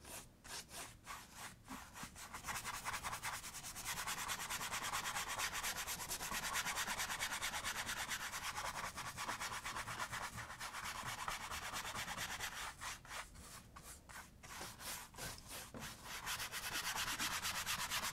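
Paintbrush scrubbing paint onto a canvas. At first come separate short strokes, then about ten seconds of fast, continuous scrubbing, and near the end separate strokes again.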